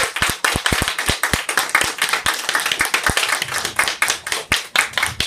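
Applause from a small audience in a small room: scattered, distinct hand claps just after a sung note ends.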